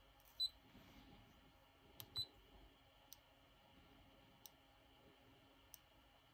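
Near silence broken by a Measall KC908 handheld spectrum analyzer being operated: two short high beeps as keys are pressed, about half a second and two seconds in, then a few faint single clicks roughly a second apart as the tuning knob is turned.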